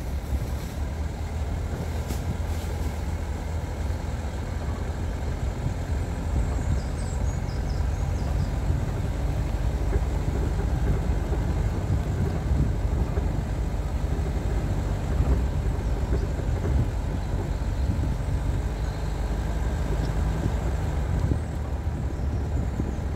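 A motor vehicle driving steadily, a continuous low engine and road rumble, with a few faint high chirps about seven seconds in.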